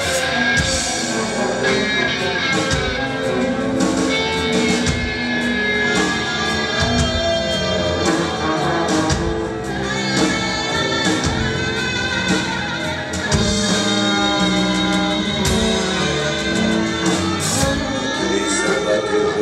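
Live band with bass clarinet, tuba, guitars and drums playing an instrumental passage with a steady beat.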